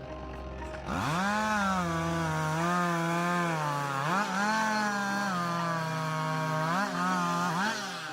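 Two-stroke chainsaw revving up about a second in and cutting, its engine pitch sagging under load and rising again several times as it works through the wood.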